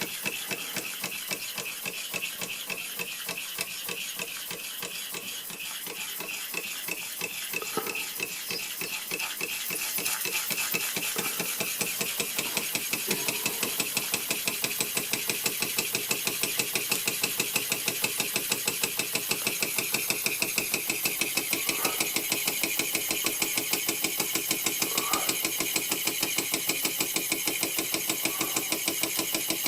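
1926 Bing toy steam engine running, with a fast, even chuffing over a steady hiss of steam. The beats grow louder and sharper about ten seconds in.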